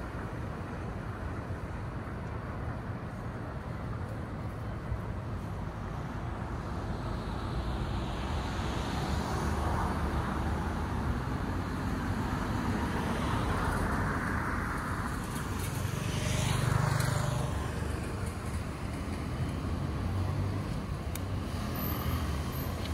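Road traffic on a city street: steady tyre and engine noise, with vehicles going by. The loudest one swells up and passes about two-thirds of the way through.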